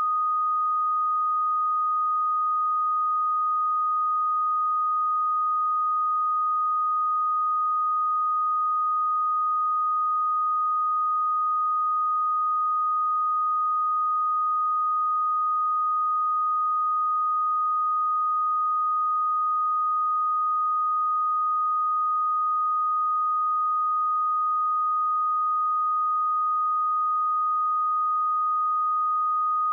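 Pure 1242 Hz sine-wave test tone, a single steady high tone held at constant pitch and level.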